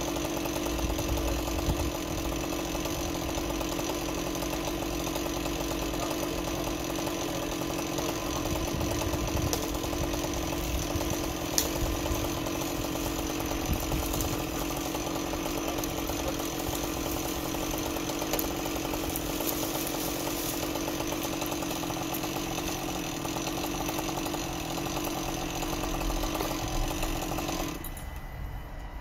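An engine running steadily at one pitch, then dropping away sharply near the end.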